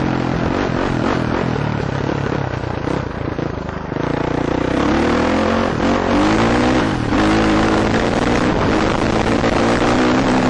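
KTM 450 four-stroke dirt bike engine running under the rider on a dirt trail, heard from a helmet camera. The throttle eases off about three seconds in, then the engine pulls harder, its revs rising and falling a couple of times before settling into a steady run.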